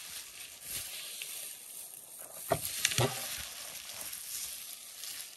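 Plastic bubble wrap crinkling and rustling as it is pulled off an alarm clock, with a couple of sharp clicks about halfway through.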